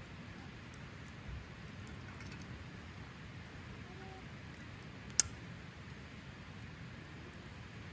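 Wood fire burning quietly in a Coleman Fire Disc Solo fire pit, with faint crackles and one sharp pop about five seconds in.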